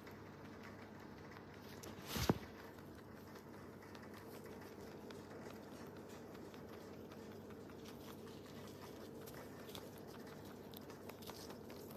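Rabbit chewing crunchy dry food, a faint run of quick crunching clicks, with a single thump about two seconds in.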